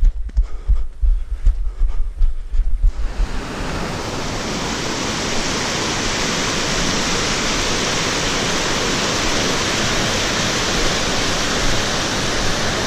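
Footsteps and low thumps of walking on a dirt trail, then, about three seconds in, the steady rush of a mountain stream tumbling over boulders takes over.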